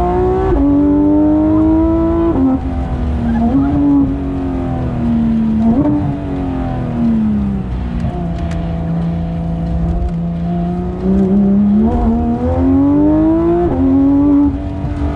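Porsche 991.2 GT3 RS's naturally aspirated 4.0-litre flat-six running hard: revs climb and drop sharply at quick upshifts, fall away about six seconds in, hold steady at lower revs for a few seconds, then climb again through two more upshifts before dropping near the end.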